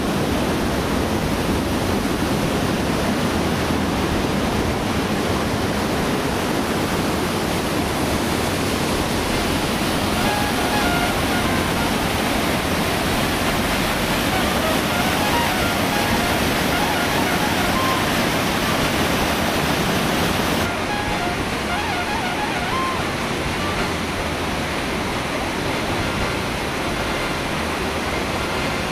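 Steady rushing of white water from a mountain stream and waterfall in a rocky gorge. About two-thirds of the way through it becomes slightly quieter and duller.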